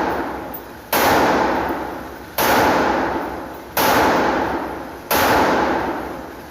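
.223-bore rifle fired four times, about a second and a half apart, each sharp shot followed by a long echo that dies away before the next.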